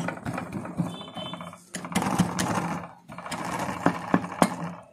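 Motorcycle cylinder block being worked by hand onto the crankcase and its dowel bushes: rapid metallic rattling in three bursts of about a second each, with a few sharp clicks near the end.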